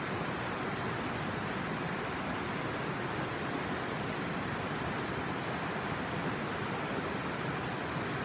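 The Tanew River pouring over a series of low rocky cascades: a steady, even rush of water.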